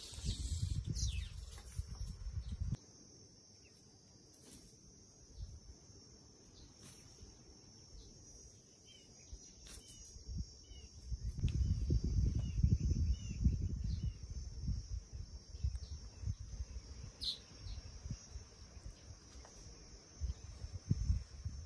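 A steady high-pitched insect drone, with a few faint bird chirps about halfway through. Bursts of low rumbling noise fill the first three seconds and come back from about eleven to sixteen seconds in.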